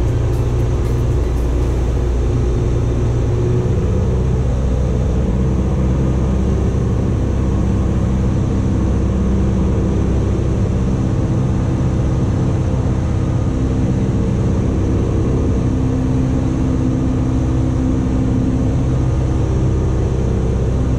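Cessna 172's piston engine and propeller droning steadily, heard from inside the cabin.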